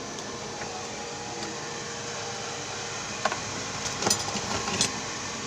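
Steady whir of a fan with a faint steady hum, and a few light clicks or taps about three to five seconds in.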